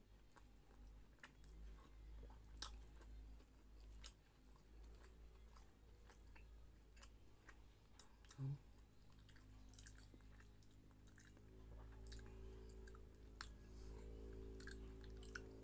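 Faint chewing of soft rice and stewed pork eaten by hand, with scattered small wet mouth clicks. A short low hum comes about eight seconds in.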